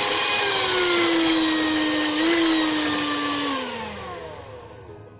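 Electric hand mixer whirring as its beaters churn soap batter, its pitch stepping down a little about half a second in, then sliding down and fading over the last second and a half as it is switched off and spins to a stop: the batter has reached medium trace.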